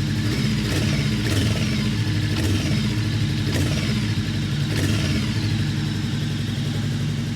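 Voge CU525's parallel-twin engine idling steadily, with a few light clicks in the first few seconds.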